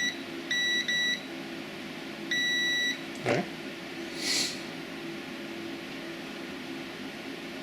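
Digital multimeter's continuity beeper sounding in high, steady-pitched beeps: a very short one, two short ones in quick succession, then a longer beep about two seconds in, as the continuity circuit is closed and opened.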